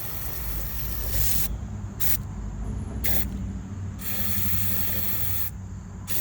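Aerosol can of white lithium grease spraying in hissing bursts: a long spray, two short puffs about two and three seconds in, then another long spray that stops shortly before the end.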